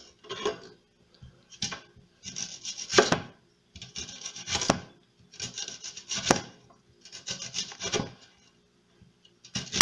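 Kitchen knife slicing a whole white onion into rings on a plastic cutting board: about six separate cutting strokes, each drawing through the onion and ending in a sharp tap of the blade on the board.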